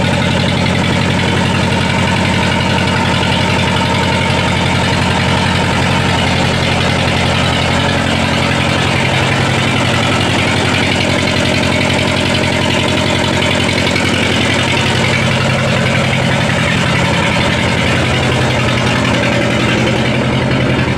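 Chinese 'Dong-Dong' 2105A two-cylinder diesel engine running at a steady working speed as it drives a rice milling machine. Its even low beat sits under a constant hiss and rattle from the mill.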